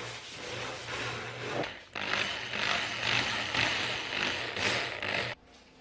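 Cordless drill driving mounting screws through a woofer's frame into its enclosure. The motor runs, stops briefly, runs again louder, then cuts off abruptly near the end.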